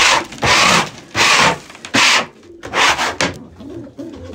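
Scraping strokes across a pigeon loft floor: about five quick strokes that stop about three seconds in.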